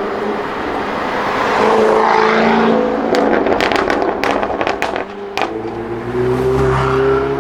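Jaguar F-Type SVR's supercharged V8 accelerating hard, then a rapid run of sharp exhaust crackles and pops on the overrun about three to five and a half seconds in. The engine note comes back strong near the end.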